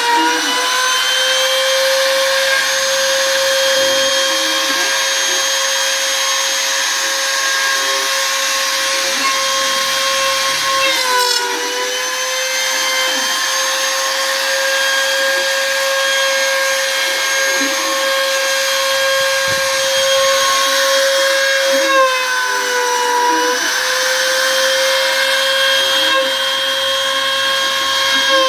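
CNC router spindle running with a steady high whine while it carves wood, its pitch dipping briefly twice.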